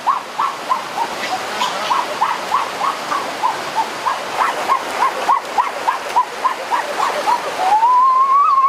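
White domestic geese honking over and over, about three short calls a second, as they are carried across a rushing stream, with one long call near the end that rises and then falls in pitch.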